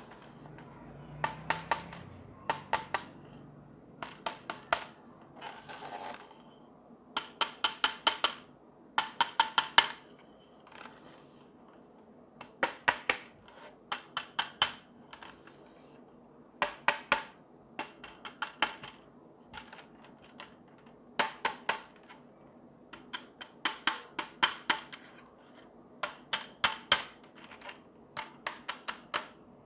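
Fingers tapping on the white plastic housing of a T5 LED batten light, in quick runs of three to six clicks that come every second or two.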